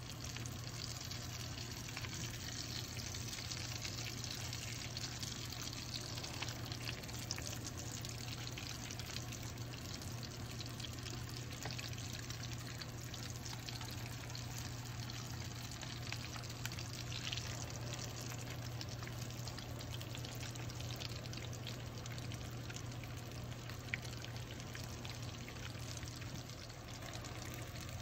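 Chicken shami kebab patties shallow-frying in hot oil in a pan: a steady sizzle with fine crackling, over a steady low hum. A sharp click stands out about three-quarters of the way through.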